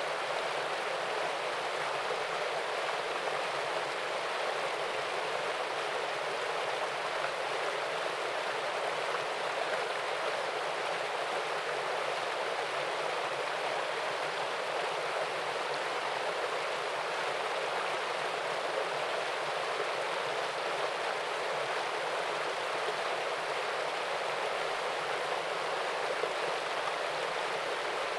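Small waterfall and stream: water pouring and rushing steadily, with no change throughout.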